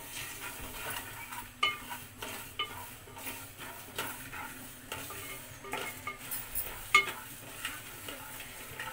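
Spatula scraping and stirring whole spices (fenugreek, cumin, coriander and mustard seeds) as they dry-roast in an aluminium kadai, with scattered crackles and a few sharper pops, the loudest about seven seconds in. The crackling is the sign that the seeds are roasted through.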